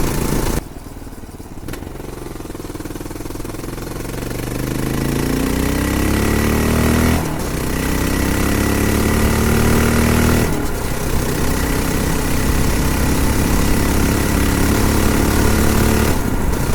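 Honda XR650L single-cylinder four-stroke engine running through an aftermarket slip-on exhaust, pulling with its pitch climbing steadily for several seconds. It is heard in a few short clips, each ending in an abrupt cut.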